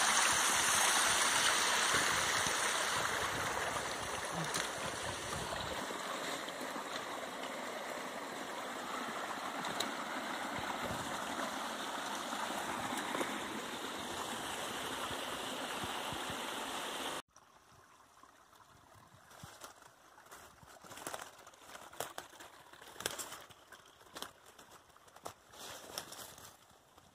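Small forest stream running and splashing over rocks, a steady rush of water that cuts off abruptly about two-thirds of the way through. After that, much quieter footsteps and rustling through leaf litter and undergrowth, with scattered sharp clicks.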